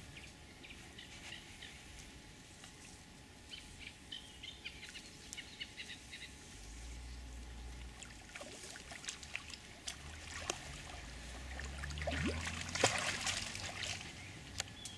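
Water splashing as a hooked mirror carp thrashes at the surface beside reeds, with scattered sharp splashes. The splashing grows loudest about twelve to fourteen seconds in as the fish is drawn into the landing net.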